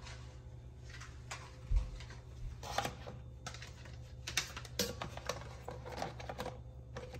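Snap-on plastic lids being pressed onto plastic deli containers, giving a string of light plastic clicks and knocks that come thickest in the second half, over a low steady hum.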